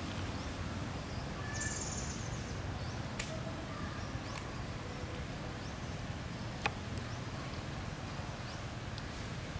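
Outdoor natural ambience: a steady low rumble, with a short high insect buzz about two seconds in and a few faint chirps. Two sharp clicks sound, one about three seconds in and a louder one near seven seconds.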